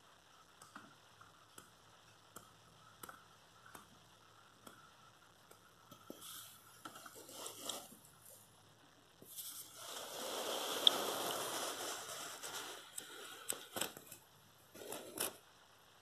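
Handling noise: scattered faint clicks and rustles, then a louder rustling stretch of about three seconds past the middle, and a few sharper clicks near the end.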